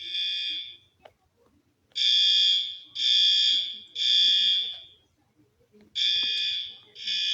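Fire alarm sounding in the temporal-three evacuation pattern: high-pitched electronic beeps in groups of three, about a second apart, with a pause of about a second between groups.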